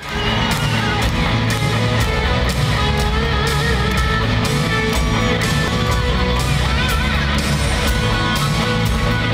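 Live rock band playing at full volume in an arena: electric guitars over a steady drum beat of about two hits a second.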